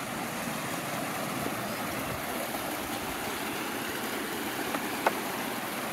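Steady rushing of flowing stream water, with a single short click about five seconds in.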